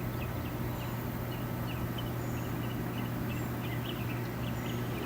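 Water well pump's electric motor running steadily with a constant low hum, building tank pressure toward the pressure switch's shutoff point. Scattered short, high chirps sound over it.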